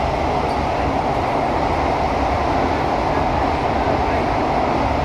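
Steady running noise heard from inside a CT251 metro train carriage: a constant rumble of the wheels on the track with an even mid-pitched hum, unchanging throughout.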